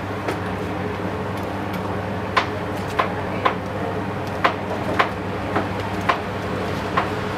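A spoon knocking and scraping against a plastic colander as diced raw chicken is scraped out into a pot. The sharp knocks come every half second to a second, mostly from about two seconds in, over a steady background hum.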